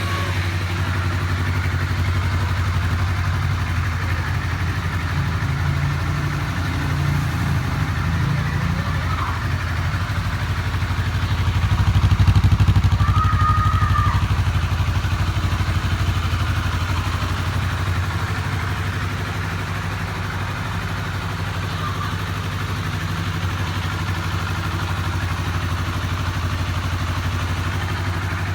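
Honda CBR250RR's parallel-twin engine idling through its stock exhaust, with a brief rise in revs about twelve seconds in.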